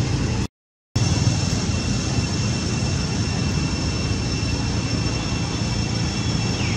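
A steady low rumble with two thin, steady high tones above it. It cuts out completely for about half a second just after the start.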